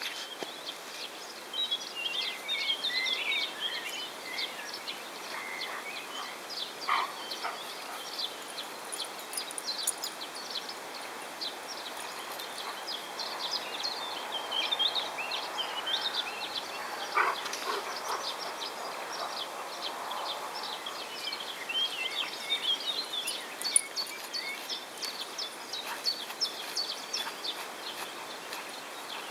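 Small birds chirping and singing in short, scattered phrases over a steady background hiss.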